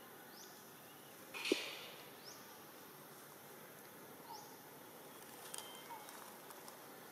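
Outdoor ambience with a short, high rising chirp repeated about every two seconds, from a bird or insect, and a brief louder burst of noise about a second and a half in.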